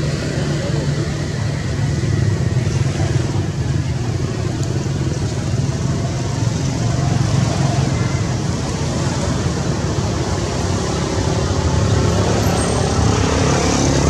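Steady low rumble with an even hiss over it, outdoor background noise, rising a little in the hiss near the end.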